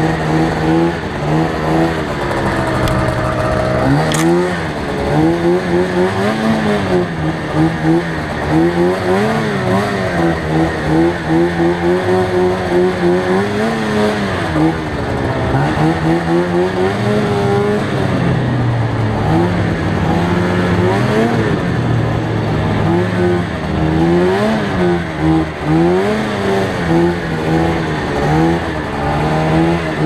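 Arctic Cat snowmobile engine running under way through deep snow, its pitch rising and falling again and again as the throttle is opened and eased off.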